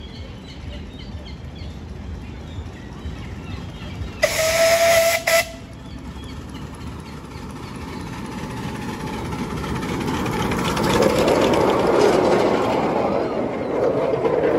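Miniature railway locomotive giving one whistle blast of about a second, with a brief break near its end, about four seconds in. The train then comes on and runs past, the noise of its wheels on the track swelling and staying loud through the second half.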